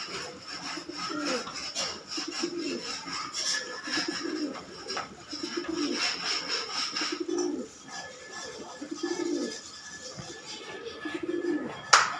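Domestic pigeon cooing over and over, a low rolling coo about once a second, with a sharp click right at the end.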